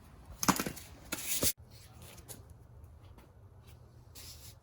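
Metal hand tools being handled: a few quick rubbing and knocking noises in the first second and a half, then a low steady hum with faint small clicks and a short rustle near the end.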